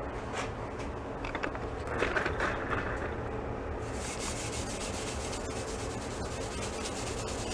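Soap-filled steel wool pad scrubbed back and forth on the chrome front fender of a Jawa 350 motorcycle: a rough rubbing with a few light clicks. From about four seconds in it becomes a steady, brighter scratching.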